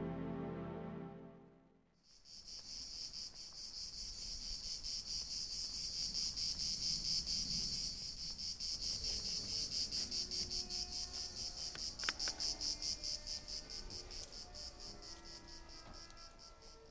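Music fades out in the first two seconds, then a cricket chirps in a steady, fast-pulsing high trill that continues to the end, with a few faint short low notes joining in over the second half.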